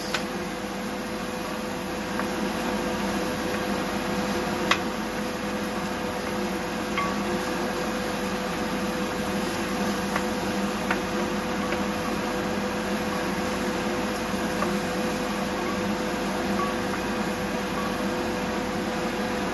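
Sliced onions sautéing in margarine in a stainless steel pan, a steady sizzle under a steady hum, stirred with a wooden spoon that clicks lightly against the pan a few times.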